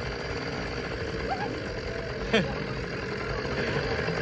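A steady engine-like hum, with a brief shouted voice about two seconds in.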